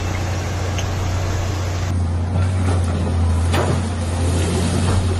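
Hydraulic excavator's diesel engine running with a steady low drone while it breaks up a concrete building, with a few short crashes of falling masonry and debris from about two seconds in.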